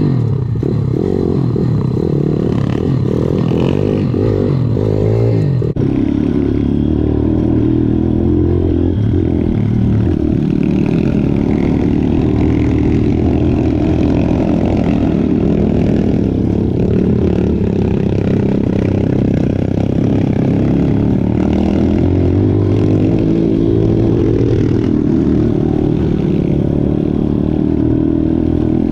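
Viar 150 SF R pitbike's engine running under the rider, its note rising and falling with throttle changes for the first several seconds and then holding steadier, with clatter from the bike over a rough trail.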